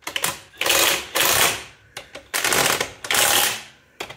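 Cordless impact wrench hammering on a bolt in several short bursts, each about half a second long, working the bolt loose from the engine.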